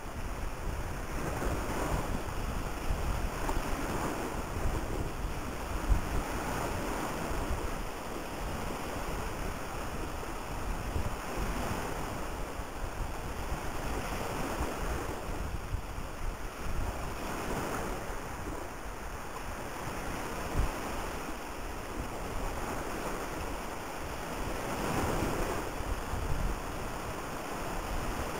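Wind and the rushing of choppy, wind-driven sea water past a ferry. The rushing swells and fades irregularly, with low rumbling buffets of wind on the microphone, one harder knock about six seconds in.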